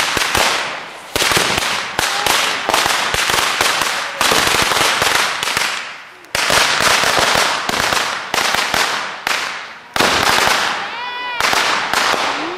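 Consumer firework going off in repeated volleys: rapid strings of sharp cracks and pops, each volley fading over about two seconds before the next begins, with a short whistle near the end.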